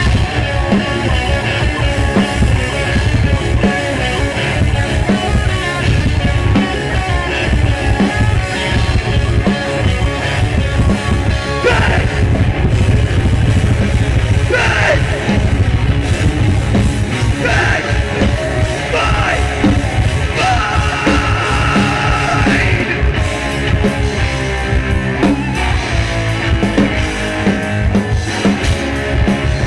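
Live rock band playing loud and full: distorted electric guitars, bass guitar and a drum kit, with a singer's shouted vocals coming in around the middle.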